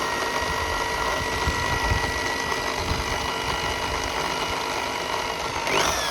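Small electric power tool motor running at steady speed, starting abruptly. Near the end it is switched off and its pitch begins to fall as it winds down.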